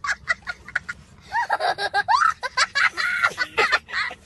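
A young child laughing hard: a fast run of short laughs, then high squealing laughs that rise and fall in pitch.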